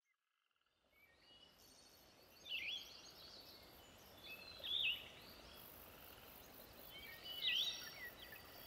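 Woodland ambience fading in: birds calling over a soft steady hiss, one of them repeating a short sharp call that sweeps down and back up about every two and a half seconds.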